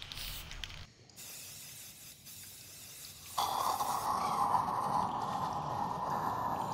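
Aerosol spray-paint can hissing onto a wall, first in short spurts, then in one longer spray. A little past three seconds in, a loud steady rushing noise starts abruptly and drowns it out.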